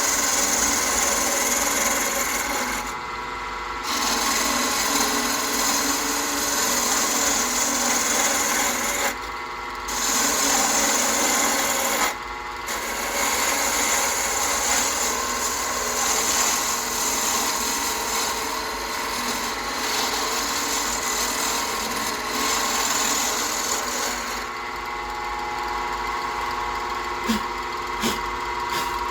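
A wood lathe runs steadily while a tool scrapes against the spinning pen blank, shaping it. The scraping breaks off briefly three times. Near the end it stops, leaving the lathe's motor hum and a couple of sharp clicks.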